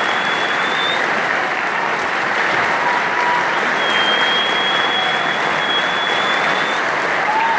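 Audience applauding steadily in an auditorium after a percussion ensemble piece, with a long, high, steady whistle over the clapping from about four seconds in to near the end.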